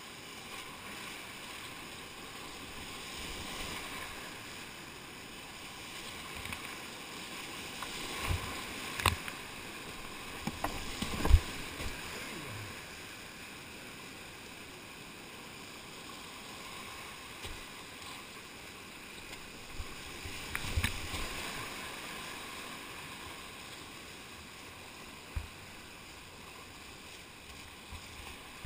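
Whitewater rapids rushing steadily around a kayak, heard up close from the boat, with scattered short thumps and splashes against it; the loudest comes about eleven seconds in, with another cluster around twenty-one seconds.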